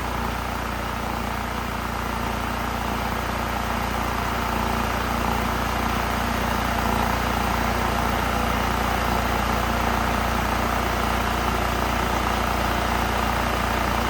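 Honda EU3000is inverter generator's single-cylinder engine running steadily just after starting, with the choke that had been sticking shut now working.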